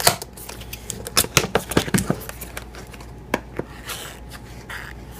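Cardboard box being opened by hand and its folded paper insert pulled out: a string of sharp taps and clicks, thickest in the first couple of seconds, with a short rustle of paper near the end.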